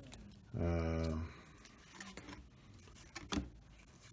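Trading cards being handled and slid apart by hand, soft rustling with a few light clicks, and a short hummed "mm" from the person about half a second in.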